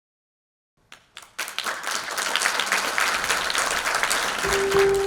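Audience applauding: a few scattered claps about a second in, quickly swelling into full, steady applause. A sustained piano note comes in near the end.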